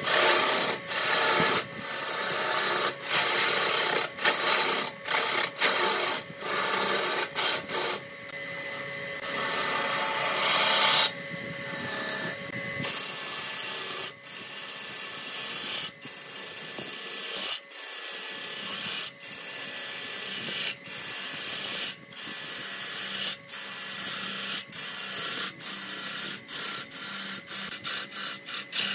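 Turning tool cutting into a spinning wood blank on a lathe, a dense scraping and tearing of shavings that comes in short, repeated strokes with frequent abrupt breaks. A faint steady hum runs underneath.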